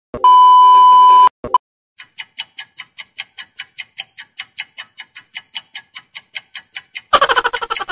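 Colour-bar test-tone beep, a loud steady 1 kHz tone about a second long, followed by a short blip. Then rapid, evenly spaced ticking, about five ticks a second, like a clock-tick sound effect, until music starts near the end.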